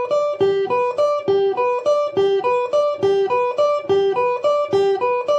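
Electric guitar playing a G major arpeggio (G, B, D) as a sweep-picking exercise in even triplets, picked down-down-up. Each note rings clearly, and a short figure repeats just under once a second.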